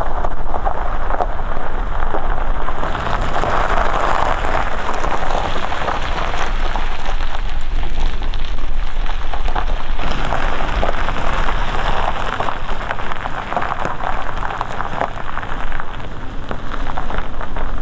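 Tyres of a first-generation Toyota Sequoia crunching over a gravel road: a dense, steady crackle over a low rumble.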